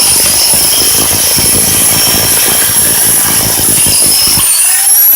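Bauer 10 amp SDS rotary hammer hammering into concrete: rapid, dense hammer blows over a high motor whine. The blows stop about four and a half seconds in while the motor keeps whining.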